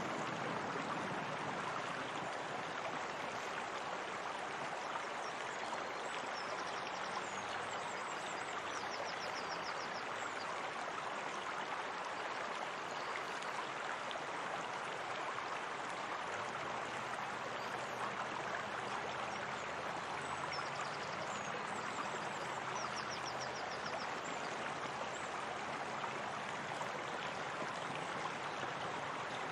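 Steady, unbroken rush of flowing water, like a stream or spring outflow. Faint high chirping trills come twice, about a quarter of the way in and again about two-thirds through.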